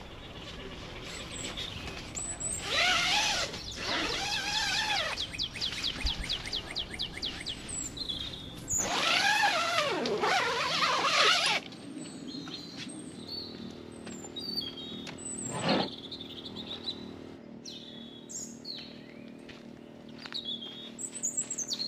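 Wild birds calling in forest: two loud wavering calls about three and ten seconds in, a rapid high trill between them, and scattered short high chirps through the second half. A faint steady hum sits underneath in the later part.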